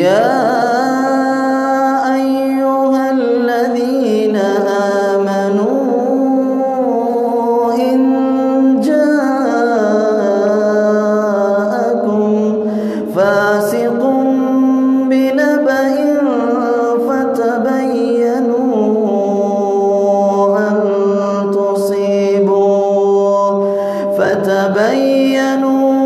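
A man reciting the Quran aloud in a melodic, drawn-out chant, holding long notes and gliding between pitches. He breaks off briefly about halfway and again near the end.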